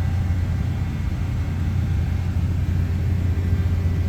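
Steady low rumble at an even level, with a faint thin whine above it.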